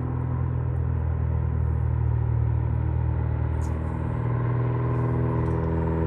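Small floatplane's propeller engine running with a steady, even drone as the plane moves along the lake surface.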